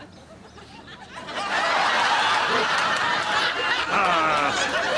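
Studio audience laughing, swelling up about a second in and carrying on loudly.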